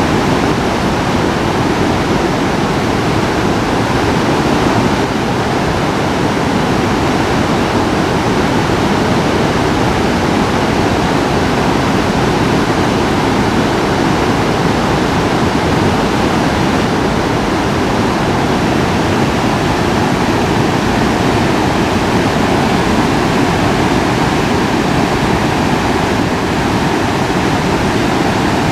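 River swollen into a muddy flood after a typhoon, its fast water rushing with a loud, steady roar.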